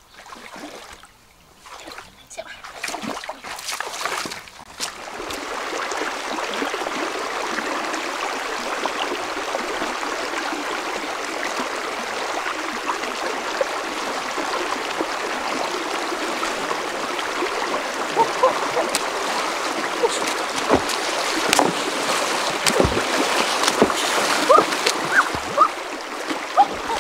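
Splashes in shallow muddy water as a bamboo pole is jabbed in, then the steady rush of a fast, shallow rocky river. Sharp splashes and knocks from wading and working in the current sound over the rush in the last several seconds.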